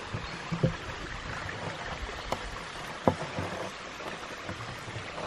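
Creek water running steadily, with a few short plastic knocks and creaks as a PVC elbow and short pipe are pushed down through the grommet in a plastic bucket lid, the loudest about three seconds in.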